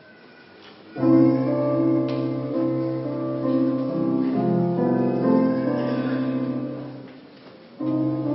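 A keyboard instrument playing sustained chords, starting about a second in. The phrase fades out around seven seconds and a new chord starts just before the end.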